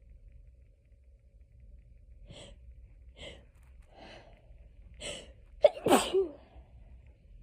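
A person with hay fever sneezing: four short breathy catches come about a second apart, then one loud, sharp sneeze about six seconds in.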